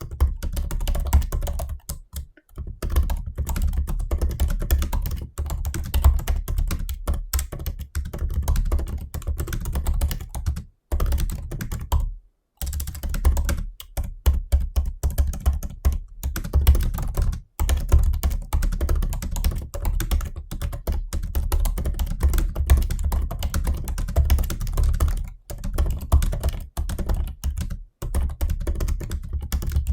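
Typing at a normal pace on a 2020 MacBook Pro 16-inch laptop keyboard: a steady run of key clicks with a few brief pauses.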